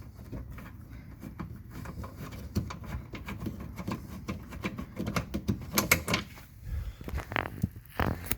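A ratchet clicking in quick strokes as a 10 mm bolt is backed out of a car door's inner panel, followed by a few louder metallic knocks near the end.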